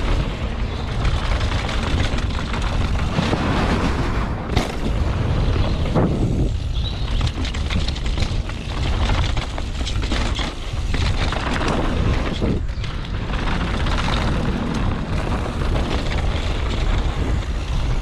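Mountain bike riding fast down a dirt trail, heard from a camera on the bike or rider: wind buffeting the microphone over the rattle of the bike and tyres rolling on loose dirt, with a sharp knock over a bump about four and a half seconds in.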